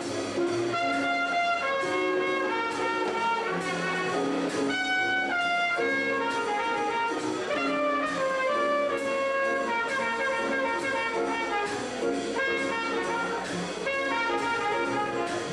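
Trumpet playing a melodic line of changing notes, holding one high note about five seconds in, with band accompaniment underneath.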